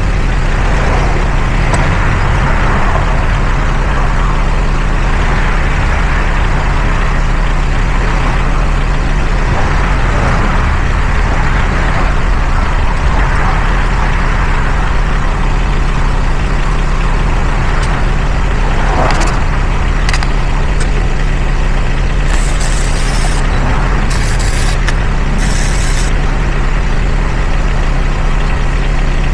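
Vehicle engine idling steadily. About three-quarters of the way through come three short bursts of hiss, each lasting about a second.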